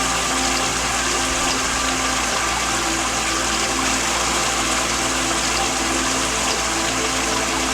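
Steady rushing of a waterfall, with a soft melody of long held tones faint underneath.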